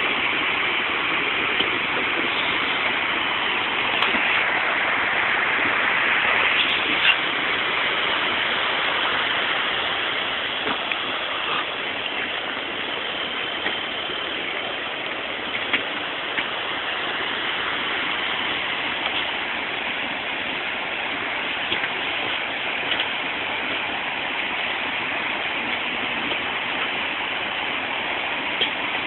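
Tsunami floodwater rushing through a town as a steady, loud rushing noise, with a few faint knocks of debris.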